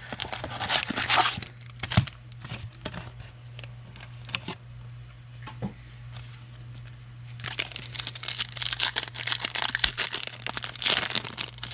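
Foil wrapper of a football card pack being torn open and crinkled, with cards handled, in crackly bursts that pick up again in the last few seconds.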